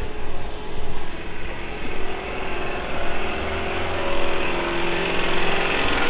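A motor vehicle engine running, its pitch rising steadily through the second half as it speeds up.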